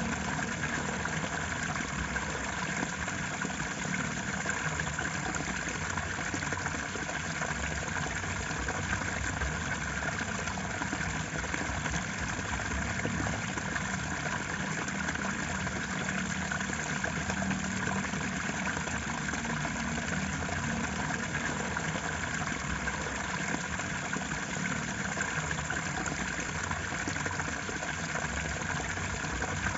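Steady, unbroken rushing of flowing water, even in level throughout.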